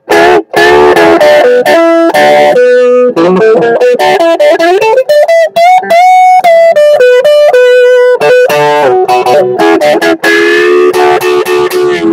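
Electric guitar played through a custom 5-watt amplifier on its overdrive channel. Chords at the start, a run of single notes with string bends in the middle, and fuller chords again near the end.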